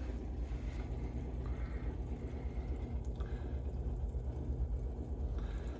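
Small circulating water pump running with a steady low hum, while water drips and drains through a glass sight tube with bubbles rising in it.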